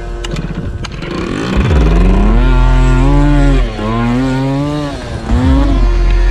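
A small moped engine revving up and down, its pitch rising and falling. It drops off sharply twice, about a second and a half in and again near five seconds.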